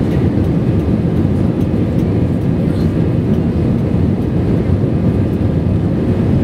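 Airbus A320 cabin noise during the climb after takeoff: a steady, loud low rumble of the jet engines and the airflow, heard inside the cabin over the wing.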